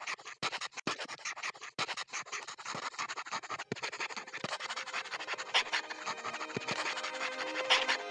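Pencil scratching across paper in quick, irregular sketching strokes, with a few louder strokes near the end.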